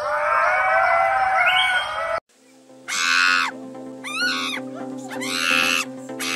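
Ring-tailed lemurs giving many overlapping chirping calls, cut off about two seconds in. After a short pause, a monkey gives several shrill calls over a steady background music chord.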